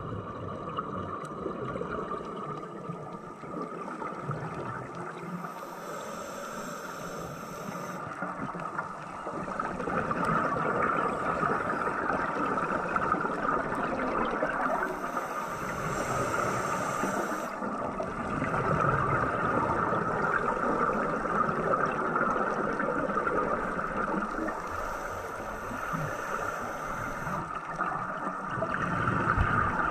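Steady rushing, gurgling water, louder after about ten seconds, with a faint high hiss coming and going about every nine seconds.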